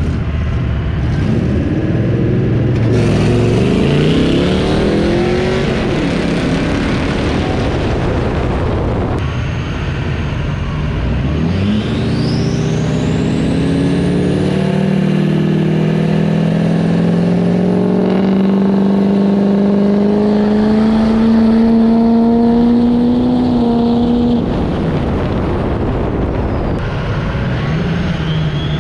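Diesel pickup truck engines revving in uneven up-and-down surges. Then one engine climbs steadily in pitch for about twelve seconds as a truck accelerates hard, with a high whistle rising sharply as the pull begins.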